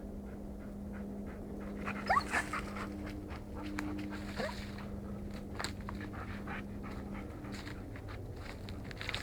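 A retriever panting and whining, with short rising whines about two seconds in and again a couple of seconds later.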